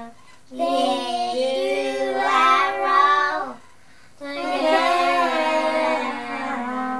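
A child's voice singing a song in three phrases, with two short pauses between them.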